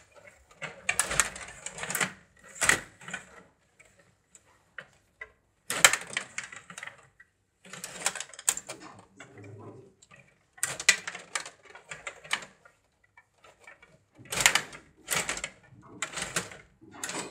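Rod table hockey in play: the rods clatter and click as they are pushed and spun, and the plastic players knock the puck, in bursts of rapid clicking separated by short pauses.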